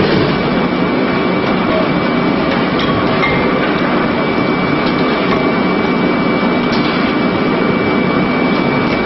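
Industrial twin-shaft shredder running, its counter-rotating cutter shafts making a steady loud mechanical din with a thin high whine and a few light clicks.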